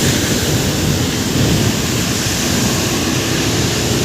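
Heavy rain and rushing floodwater: a loud, steady, unbroken rushing noise.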